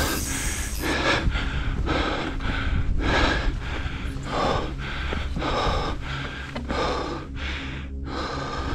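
Heavy, rapid breathing of a hiker out of breath from climbing a steep granite slope on fixed cables, about two breaths a second.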